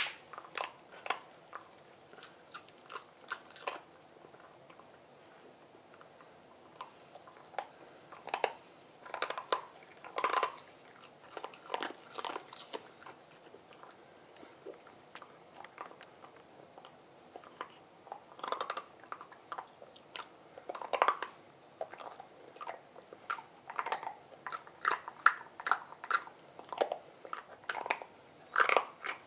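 Cavalier King Charles spaniel crunching and gnawing an ice cube: irregular sharp cracks and crunches in bouts, with a few quieter pauses between them.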